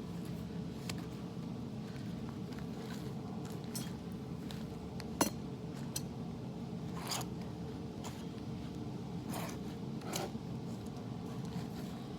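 Propane forge running with a steady hum, under scattered light clicks and scrapes from metalwork, the sharpest click about five seconds in.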